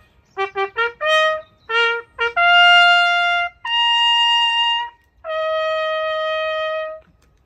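A trumpet played as a bugle call: a run of quick short notes, then three long held notes, the middle one higher, the last one breaking off about seven seconds in.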